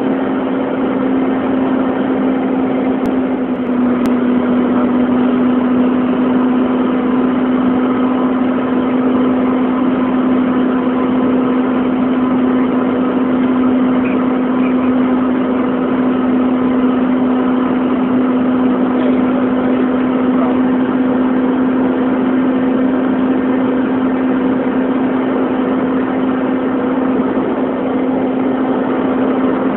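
Steady in-flight cabin noise of a Cessna Citation II twin-turbofan jet: a constant engine hum over the rush of air past the fuselage. The hum drops slightly in pitch about four seconds in.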